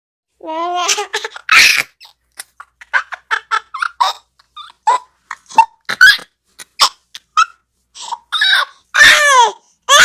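Baby laughing in quick bursts of giggles and high squeals, with a longer squeal near the end that falls in pitch.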